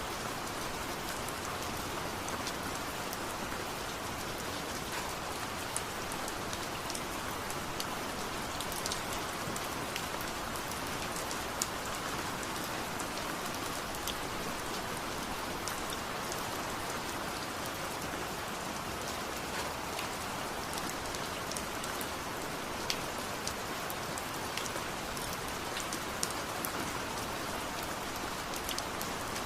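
Steady rain falling and pattering on surfaces, with scattered sharper individual drop hits.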